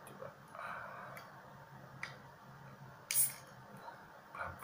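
Fingers clicking and scraping at the pull tab of a Bintang Crystal beer can, then a short sharp hiss of escaping gas about three seconds in as the tab cracks the seal. A soft knock near the end.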